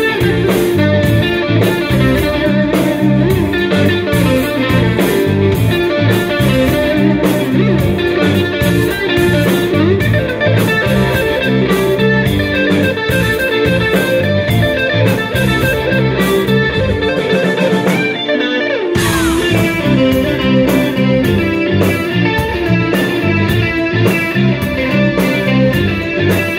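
Live band playing an instrumental, with a lead electric guitar melody over drums, bass and timbales and a steady beat. About eighteen seconds in, the bass and drums drop out for a moment, then the full band comes back in.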